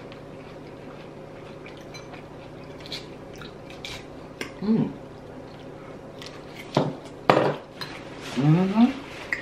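Eating sounds: a metal fork clinking and scraping against a glass salad bowl, with scattered light clicks and two sharper knocks about seven seconds in. Short hummed "mm" sounds come twice, the second rising in pitch near the end.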